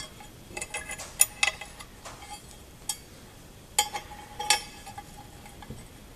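Small metal S-hooks clinking against a steel plate as they are hooked through its drilled holes: scattered light metallic clinks, a couple near the middle ringing briefly.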